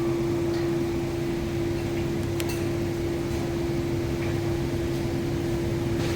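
A steady mechanical hum, a constant mid-pitched tone over a low rumble, with a few faint clicks.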